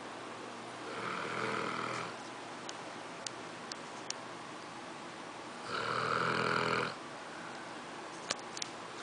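English Mastiff snoring in its sleep: two long snores, one about a second in and a louder one just past the middle.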